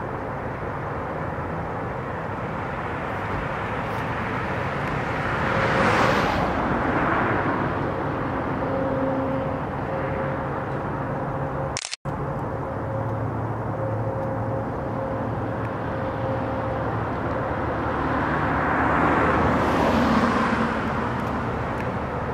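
Steady outdoor road-traffic noise, with two vehicles passing, one about six seconds in and another around twenty seconds, each swelling and fading. The sound drops out for an instant about halfway through.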